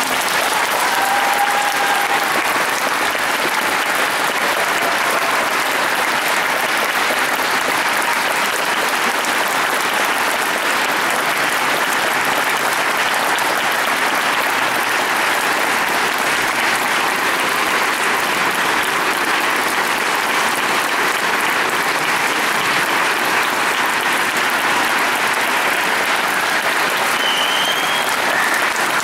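Audience applauding: dense, steady clapping from a full hall, at an even level.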